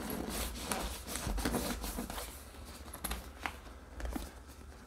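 Zipper on a gaming chair's removable leather back panel being worked and the panel's bottom edge tucked in: irregular scratchy rustling with a few small clicks.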